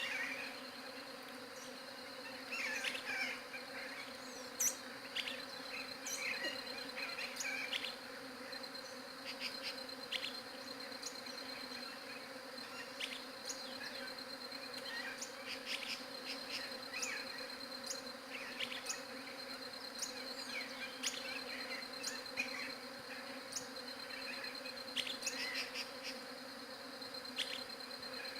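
Many bees buzzing together in a steady, continuous hum. A rapid high pulsing trill runs over it, with scattered short chirps and clicks.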